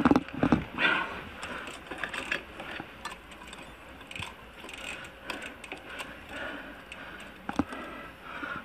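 A mountain bike being handled on a dirt trail: clicking and rattling from the bike's drivetrain and freewheel hub. There are a few louder knocks in the first second and another near the end.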